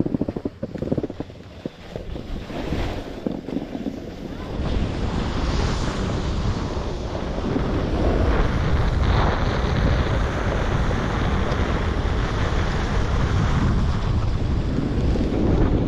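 Wind buffeting the microphone while riding downhill on a snowboard, mixed with the hiss of the board sliding over snow. It comes in uneven gusts at first, then about four to five seconds in it builds to a steady loud rush as speed picks up.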